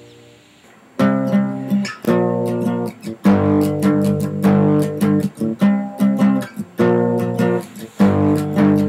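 Music: a guitar strumming chords. It comes in loud about a second in, after a fading chord.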